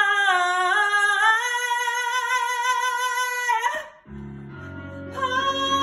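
A woman singing a long held note on "my" in a showtune, stepping up in pitch about a second and a half in and cutting off just before four seconds. A low accompaniment chord then sounds, and another long held note begins about five seconds in.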